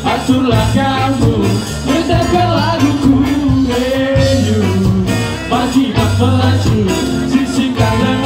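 Ska band playing live through a PA: trombone and trumpet, electric guitars, bass and drums, with a steady, repeating bass line under a moving melody.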